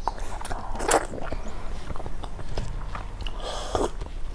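Close-miked mouth sounds of a person eating with their hands: chewing with wet clicks and lip smacks, then a sip of water from a glass near the end.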